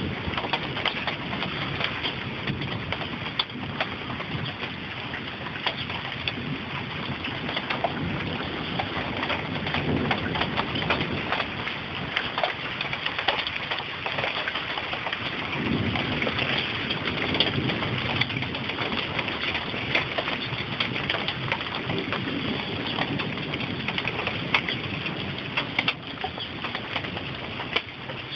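Steady rain falling, with many sharp ticks of drops striking a sheet-metal awning.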